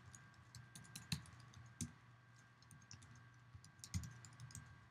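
Typing on a computer keyboard: faint, irregular keystrokes, with a few louder ones about a second in, near two seconds and near four seconds, over a faint steady hum.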